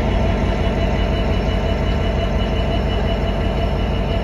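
Class 66 diesel-electric locomotive's two-stroke V12 engine running steadily and loudly as the locomotive passes close by hauling coal hopper wagons.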